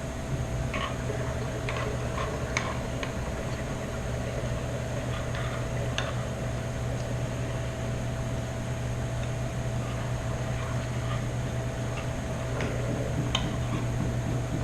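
A steady low electrical hum, with scattered light clicks and taps from a spoon stirring slime in a bowl.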